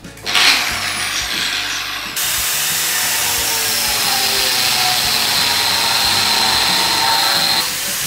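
Cordless angle grinder spinning up and grinding into a steel plate. About two seconds in the grinding gets louder and steadier with a high whine; near the end it comes off the work and winds down.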